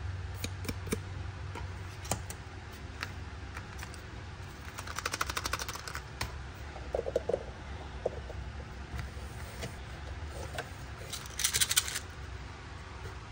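Small plastic miniature toy-kitchen pieces and their packaging clicking and tapping as they are handled, with a rapid crackle about five seconds in and a louder one near the end.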